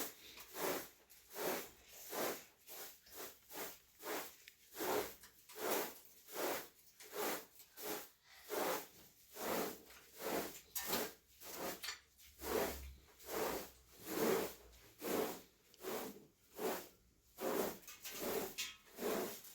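Rhythmic rubbing strokes, nearly two a second, keeping an even pace throughout.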